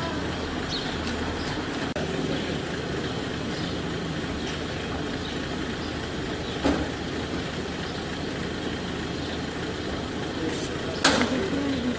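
Armoured military jeep's engine idling steadily, with a single knock about halfway through and a sharper, louder clank near the end.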